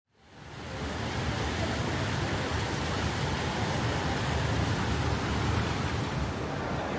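Steady, dense murmur of a large crowd milling about, fading in over the first second.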